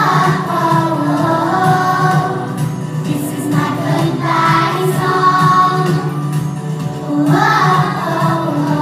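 A group of young children, about five or six years old, singing a song together in unison over an instrumental accompaniment.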